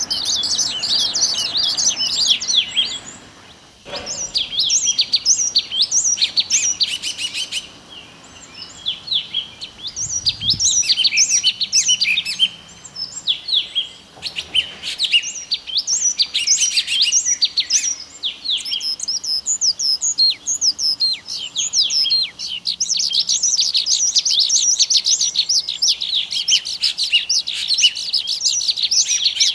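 Small birds chirping in a dense chorus of quick, downward-sweeping notes, with short lulls about four, nine and fourteen seconds in.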